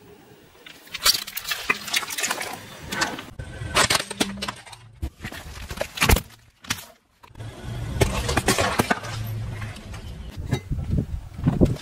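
A car tyre rolling over and crushing objects, with a series of sharp cracks and crunches as they break. A short silent gap comes a little past halfway.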